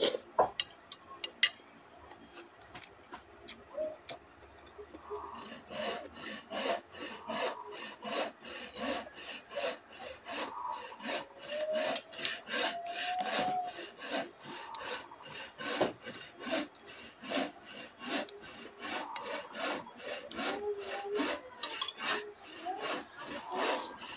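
Hand saw cutting wood in quick, even back-and-forth strokes, starting about five seconds in. A few light clinks of a spoon against a bowl come just before.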